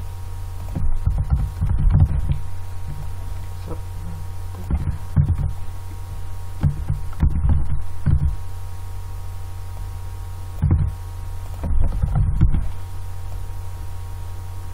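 Steady low electrical hum, with groups of dull low knocks from a computer keyboard and mouse in use.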